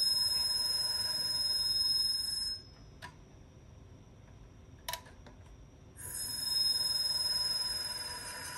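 High-pitched electrical whine of several steady tones from an IBM XT 10 MB hard drive's spindle motor, powered but stalled and drawing about 4 amps. The whine cuts out about two and a half seconds in as the current falls to zero, with two short clicks in the gap. It comes back about six seconds in and fades toward the end.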